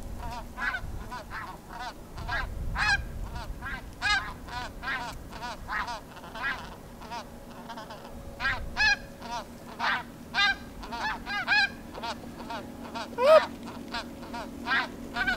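A flock of snow geese calling: many short, high, overlapping honks coming thick and fast, some loud and close, others fainter.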